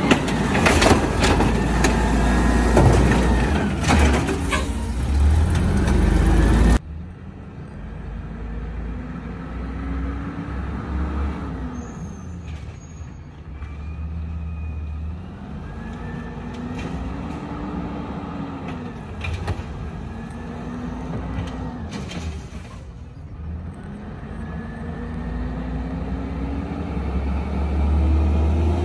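Automated side-loader garbage truck: its engine runs loud and close while the lifting arm tips a cart. After about seven seconds it is heard farther off, the engine revving up and back down several times as the truck works the carts. It grows louder and higher near the end.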